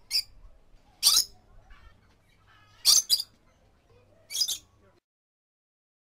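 Red lory (Eos bornea) giving short, shrill squeaks, about half a dozen, some in quick pairs, with faint softer chatter between them.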